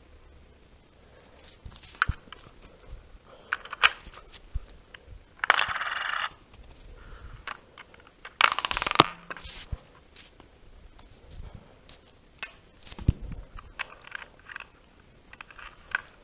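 A homemade LEGO candy machine being worked by hand with a coin: scattered clicks and knocks of plastic bricks and coin, with two short sliding rattles about five and a half and eight and a half seconds in.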